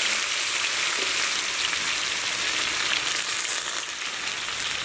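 Butter sizzling as it melts in a large, very hot iron kadai: a steady sizzle that eases a little near the end.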